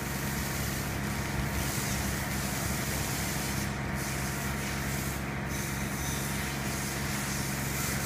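Pressure washer running: a steady low engine hum under the hiss of the water jet spraying the top of a column. The hiss thins briefly twice around the middle.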